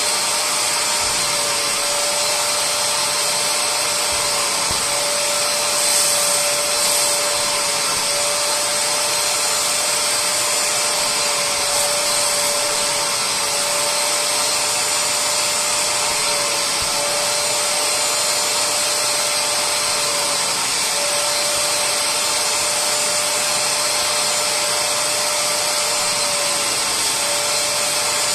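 Bissell SpotClean Pro spray-extraction cleaner's suction motor running steadily with a constant whine and hiss while its upholstery hand tool is worked over fabric, briefly louder twice about six seconds in.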